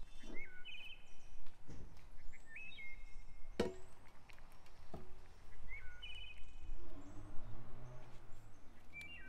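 Garden ambience: a bird repeats a short call that steps up in pitch, about every three seconds. Two sharp knocks come near the middle.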